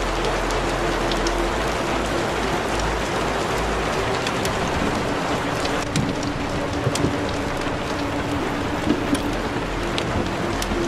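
Steady, dense rain-like hiss with scattered small clicks and crackles, and faint sustained musical tones underneath.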